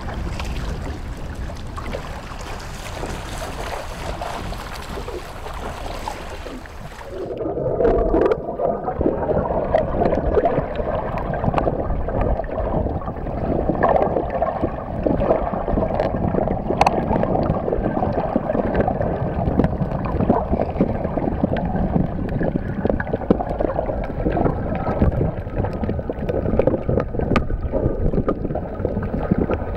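Wind and water washing against a wooden boat, then about seven seconds in the sound turns to muffled underwater noise, a steady watery rush full of small clicks and crackles among a school of fish in the trap.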